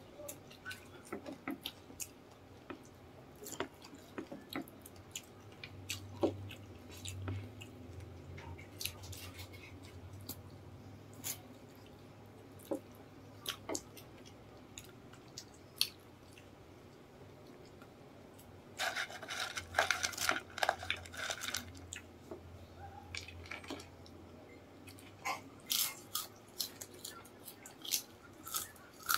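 Close-up eating sounds: chewing and biting of crispy fried chicken skin and chicken feet, with scattered sharp crunches and wet chewing. There is a dense run of loud crunching about two-thirds of the way in, and more crunching near the end.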